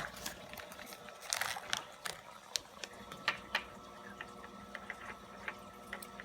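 Small plastic objects, a surprise egg shell and dinosaur toy, being handled: irregular light clicks and taps, with a small cluster about a second and a half in.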